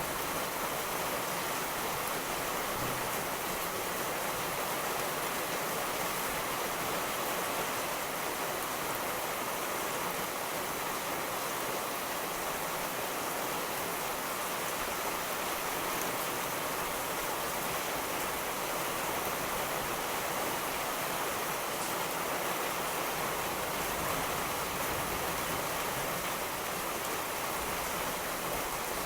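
Steady rain falling, an even hiss without breaks or thunder claps.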